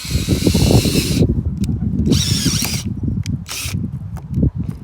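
Strong wind buffeting the microphone, a heavy rumble throughout, with several short bursts of hissing, rasping noise: one in the first second, another around two seconds in, and a brief one a little later.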